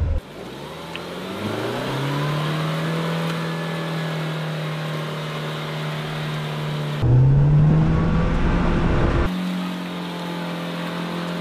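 Mahindra Thar's engine held at full revs while the SUV sits stuck in deep mud, the wheels spinning without getting it out. The engine note climbs over the first two seconds and then holds steady. About seven seconds in it climbs again under a heavier low rumble for a couple of seconds, then settles back to steady high revs.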